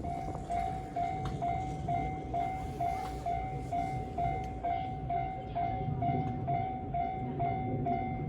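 Japanese railway level-crossing warning bell, an electronic 'kan-kan' tone struck evenly a little over twice a second over a steady low rumble.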